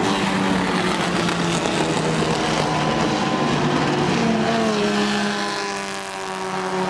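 Vintage sports racing cars, a Triumph TR3 among them, passing at race speed on a wet track. The engine notes drop in pitch as they go by, about four to six seconds in, and the next car comes up close behind.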